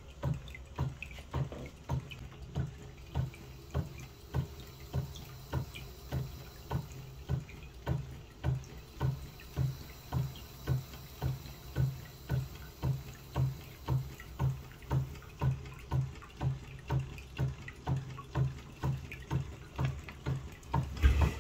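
Quarter-scale Rider-Ericsson hot air pumping engine running and pumping, making an even beat about twice a second as its pump spurts water into a glass jar on each stroke. A louder bump comes near the end.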